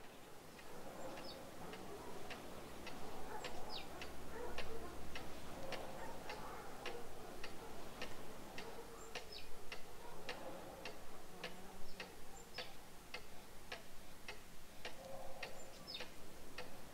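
Clock ticking steadily, about two ticks a second.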